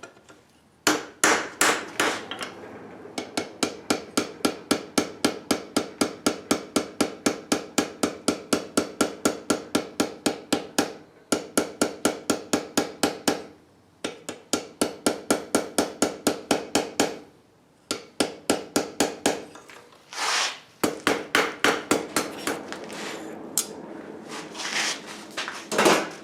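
Blacksmith's hammer striking hot steel on an anvil in steady runs of about three blows a second, the anvil ringing between blows, with short pauses between runs.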